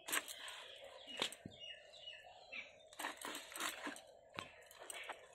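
Knife cutting through the bony head end of a bhetki (barramundi): a scattered series of sharp cracks and crunches as the blade bites through bone. Birds chirp briefly about two seconds in.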